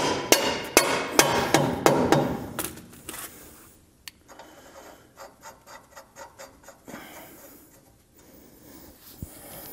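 Steel front-suspension parts of a 1966 Ford F100, the radius arm and I-beam, clanking and being tapped together with hand tools, a busy string of ringing metal clinks and knocks. After about four seconds it drops to a quieter run of quick, faint clicks, about five a second, for a few seconds.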